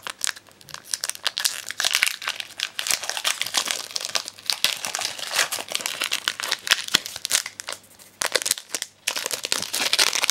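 Foil Pokémon card booster pack wrapper crinkling and rustling in irregular bursts as it is handled and opened, with a short lull near the end.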